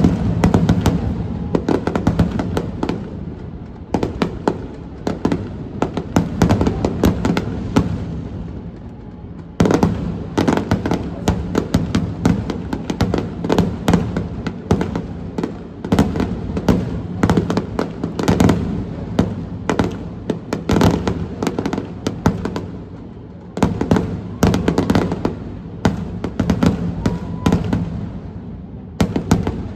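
Aerial fireworks shells bursting in rapid volleys, many sharp bangs with deep echoing booms. There is a brief lull about a third of the way in before a loud burst starts them again.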